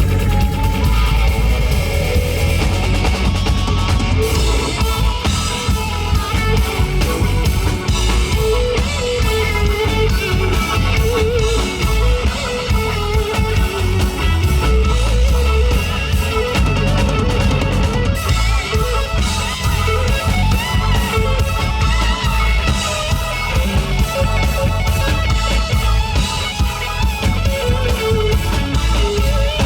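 Live rock band playing an instrumental passage: electric guitar lead over bass and drum kit, no vocals.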